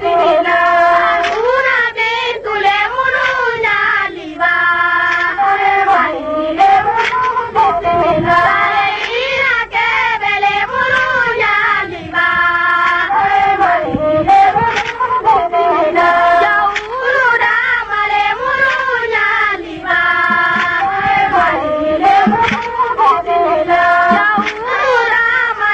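A song: a high voice sings a flowing melody over backing music.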